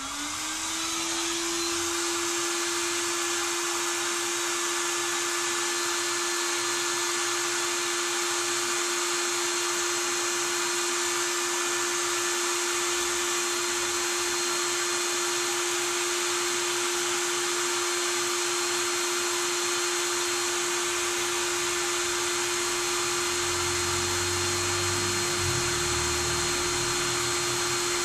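Cordless impact wrench running on a tractor's rear wheel nuts to loosen them. It spins up at the start, then runs at a steady speed with a steady whine throughout.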